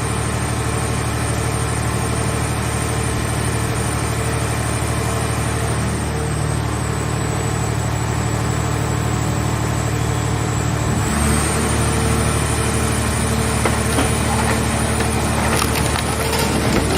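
Hydraulic car-shell baler running: a steady machine hum with a thin high whine, which steps up slightly in pitch about eleven seconds in. Near the end comes a spell of crackling and creaking.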